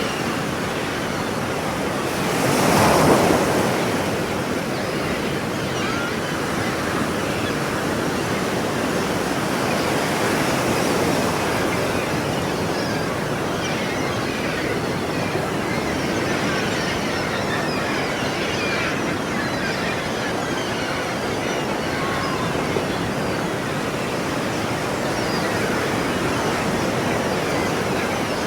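Ocean waves washing onto the shore in a steady rush, one wave breaking louder about three seconds in.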